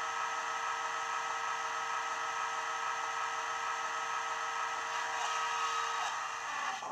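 Recorded sound of a Class 37 diesel's English Electric engine idling, played by a model locomotive's DCC sound decoder through a small 25x25x7mm megabass speaker: a steady hum with several held whistling tones.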